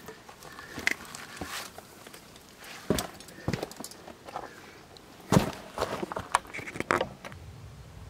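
Boots stepping down a steep metal step-ladder with grated treads: irregular metallic footfalls and clanks, the loudest about five and a half seconds in.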